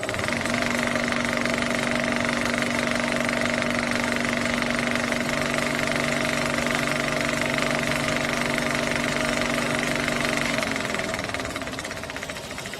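A machine running steadily with a fast, even rattle and a constant whine, stopping about eleven seconds in and leaving a quieter rumble.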